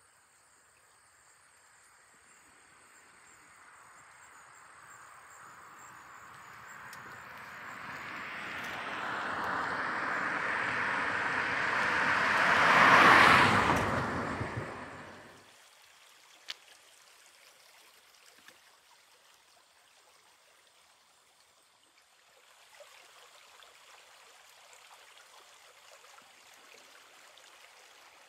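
A road vehicle approaching along the road, growing steadily louder for about thirteen seconds, passing close and fading away quickly. Near the end, a shallow creek trickles faintly.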